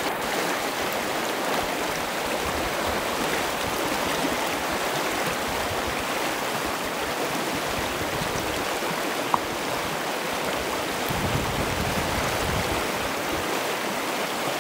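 Fast mountain river rushing over rocks: a steady, even roar of white water, with one short click about nine seconds in.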